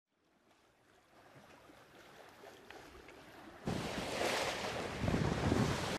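Wind and water rushing past a sailing yacht under way, fading in from silence and getting suddenly louder a little after halfway.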